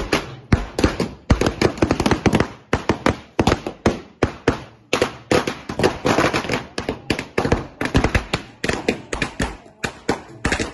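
A string of firecrackers going off: sharp cracks in rapid, irregular succession, several a second.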